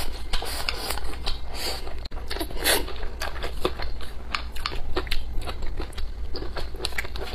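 Close-miked eating: crunchy bites and chewing, with many short sharp mouth clicks and a longer noisy stretch near the middle.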